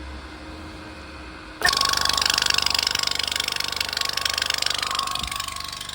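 High-pressure air compressor kicks in about a second and a half in and runs with a rapid pulsing chatter, pumping air into a bottle toward about 275 bar.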